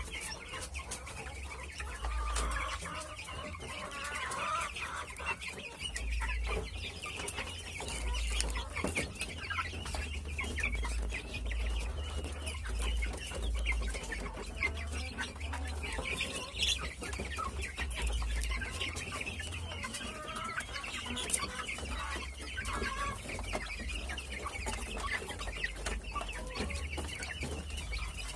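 A brood of kampung chicken chicks peeping continuously in a dense, overlapping chorus, with occasional lower calls mixed in and a low rumble underneath.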